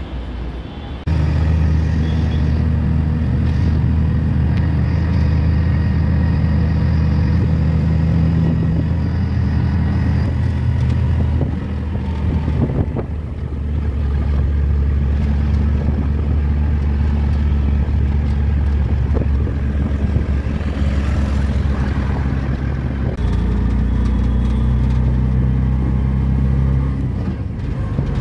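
Auto-rickshaw engine running steadily while the rickshaw drives along, heard from inside the open cab as a loud low drone. Its pitch shifts twice as the speed changes, about twelve seconds in and again near the end.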